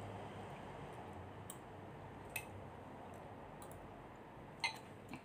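Metal spoon clinking against a glass bowl while eating: a few light, sharp clinks, the loudest near the end, over a steady low background hum.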